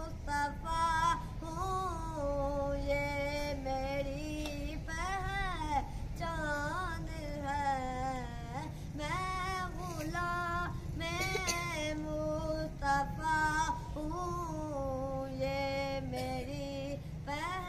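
A boy's unbroken voice singing an Urdu naat, drawing out long, wavering, ornamented notes.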